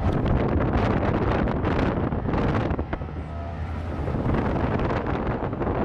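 Wind buffeting the microphone in uneven gusts over the sound of vehicles.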